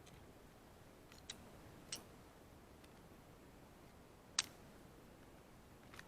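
Four short, sharp clicks, the loudest about four and a half seconds in: cartridges being pressed one by one into a pistol magazine.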